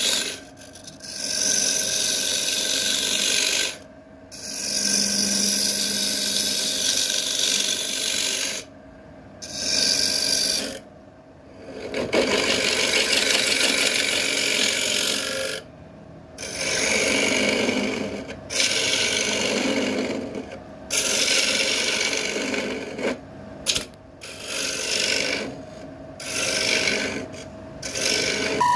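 A tool working spinning wood on a woodturning lathe with a rasping sound. It comes in stretches of a few seconds broken by short gaps.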